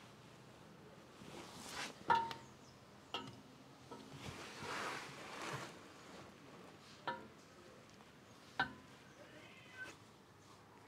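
A few sharp metallic clinks and knocks, some ringing briefly, with soft rustling in between: small metal parts and tools being handled and set down during work on the gear-lever mechanism.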